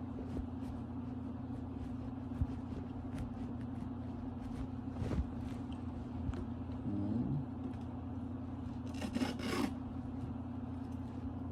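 Hands pressing and handling Velcro strips on a plastic remote: faint scrapes and light taps over a steady low hum, with a brief louder rustle about nine seconds in.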